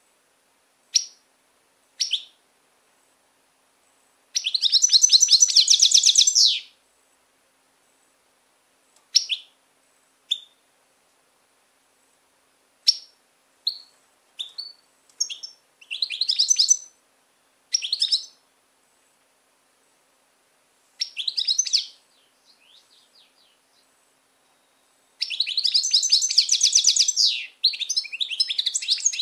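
European goldfinch singing: short single call notes, then several bursts of rapid, high twittering trills separated by silent gaps. The longest burst comes near the end.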